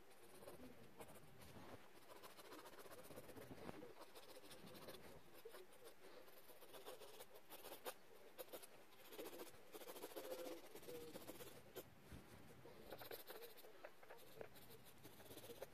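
Faint scratching of a pencil tip on paper in irregular short strokes, as the drawing is shaded.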